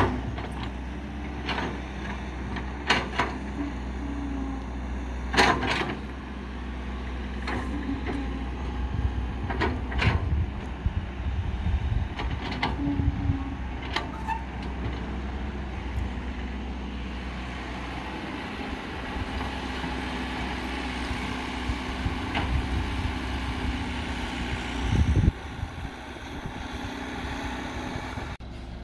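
Caterpillar 312 hydraulic excavator's diesel engine running steadily while it digs, with irregular sharp knocks and clanks from the bucket and boom working the soil. Near the end the machine swells briefly louder, then drops back.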